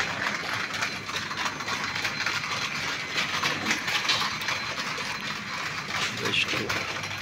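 Shopping trolley rattling steadily as it is pushed along a tiled floor, with faint voices in the background.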